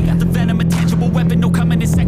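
Honda CBR650R's inline-four running at a steady cruising speed through an IXIL full exhaust with the dB killer removed, its note held at one pitch. Music with rapped vocals plays over it.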